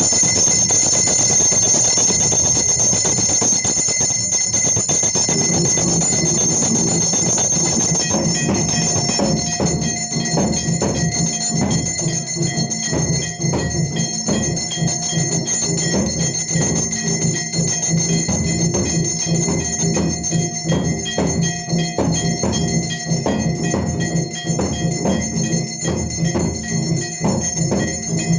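Temple bells rung rapidly and continuously, with a lower steady tone joining about five seconds in.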